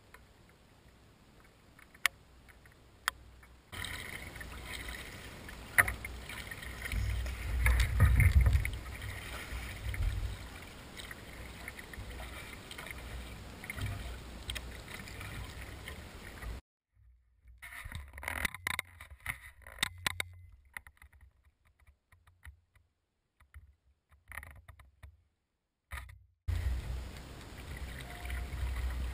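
Kayak being paddled on open water: paddle strokes and water against the hull, with a low rumble that peaks about eight seconds in. The sound cuts in and out abruptly several times, with a couple of sharp clicks in the first few seconds and near-silent gaps in the second half.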